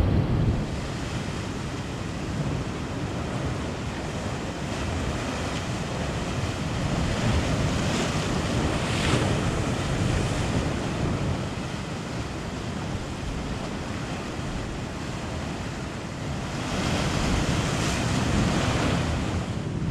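Ocean surf breaking on a beach, with waves surging louder twice, about halfway through and near the end. Wind rumbles on the microphone underneath.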